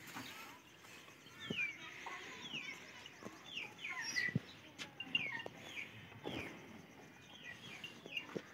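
Birds chirping over and over in short calls that fall in pitch, with scattered soft knocks and munching from buffalo calves feeding on chopped fodder at a trough.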